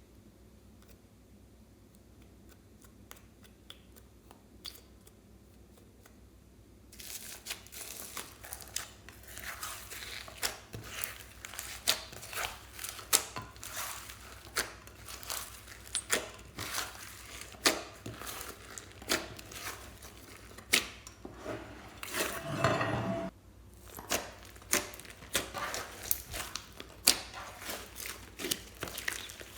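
Slime being kneaded and squeezed by hand. After a quiet stretch of faint clicks, it makes dense crackling and popping about seven seconds in, with one longer squelch a little past the twenty-second mark.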